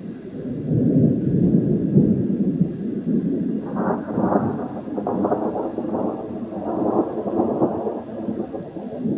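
Thunder rolling in a long, continuous rumble, loudest about a second or two in, then taking on a rougher, higher-edged rolling from about four seconds in.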